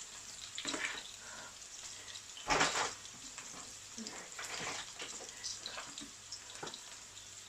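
Beef burgers sizzling and crackling in a frying pan, with one louder noise for about half a second, two and a half seconds in.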